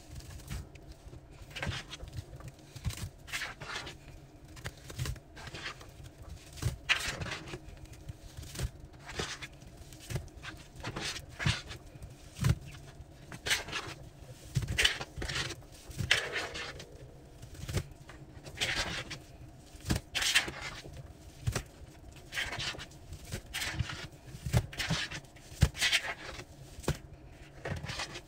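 A hand squeezing and scrubbing a foam-soaked cloth in a tub of thick detergent suds: irregular wet squelches and crackling foam, several a second.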